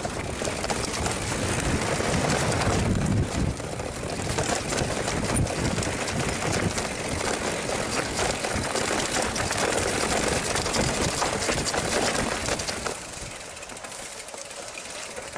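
Mountain bike riding down a rough trail: a steady noisy rumble of tyres, rattling frame and drivetrain with many small knocks, and wind on the camera microphone. It gets quieter about two seconds before the end.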